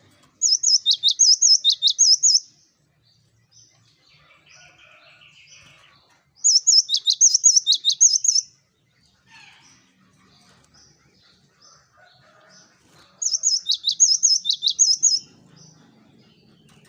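Gelatik batu (cinereous tit) singing: three bouts of about two seconds each, a quick run of repeated high-pitched notes, several seconds apart, with faint chirps in between.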